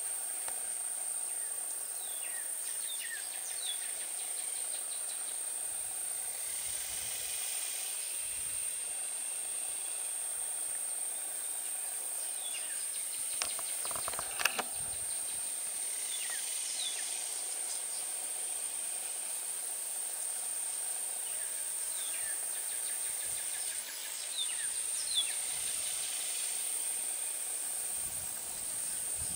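Outdoor ambience: a steady high-pitched insect drone, short bird chirps now and then, and a single knock about halfway through.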